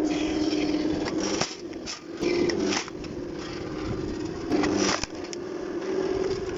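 A log splitter driving a round of wood onto a steel wedge: the machine hums steadily while the wood cracks and splinters, with three louder spells of splitting, at the start, around two and a half seconds and near five seconds, as the fibres tear apart.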